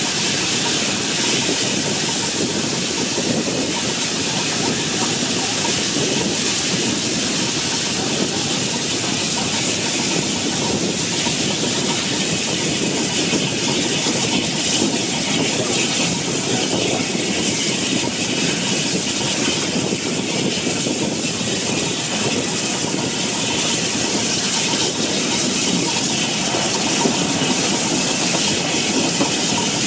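Steam-hauled train on the move, heard from just behind the tender of LNER A4 locomotive 4464 Bittern: a steady rush of wheel-on-rail running noise mixed with wind and hiss.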